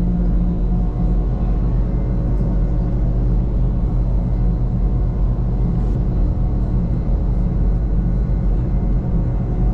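Steady rumble of a Wengernalpbahn rack-railway train running, with a constant hum of several steady tones over it.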